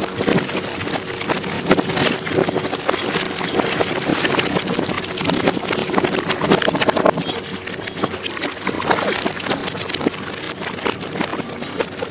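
A small fishing boat's engine running steadily at idle, with frequent irregular knocks and clatters of gear on deck.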